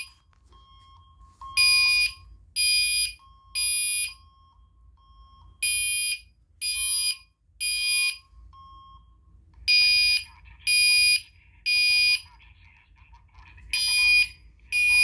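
Gentex Commander 3 fire alarm horn sounding in the temporal-three evacuation pattern: groups of three loud, half-second blasts about a second apart, each group followed by a gap of about a second and a half.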